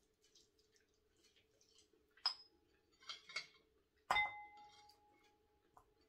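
Ceramic dishes clinking as food is handled: a light clink about two seconds in, then a louder knock about four seconds in that rings on with a clear tone for over a second. Soft handling noises fall between them.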